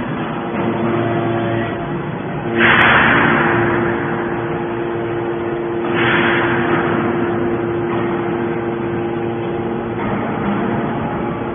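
Hydraulic scrap metal baler running: a steady hum from its pump, with two sudden loud bursts of noise, about two and a half and six seconds in, each fading over a second or so.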